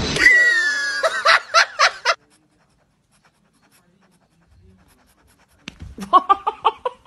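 A person laughing in quick bursts, twice: once at the start and again near the end, with a quiet gap between.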